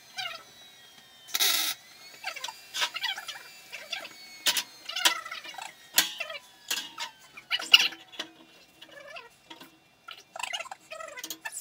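Scattered sharp clicks, knocks and clinks of hands and tools on a square steel-tube frame, with one short noisy burst about a second and a half in.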